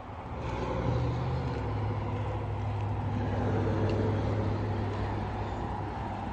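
Motor vehicle engine running, a steady low hum that swells about half a second in and then holds.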